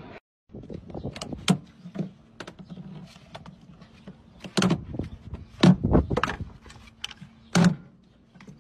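A string of knocks and thuds from hands handling a car's plastic coolant expansion tank in the engine bay, over a faint steady hum. The heaviest knocks fall around the middle and again near the end.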